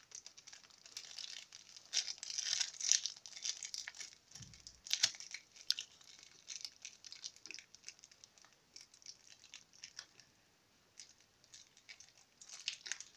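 Plastic packaging crinkling and rustling in the hands as the tripod's small remote control is unwrapped, in irregular spells with a few light clicks, busiest in the first half.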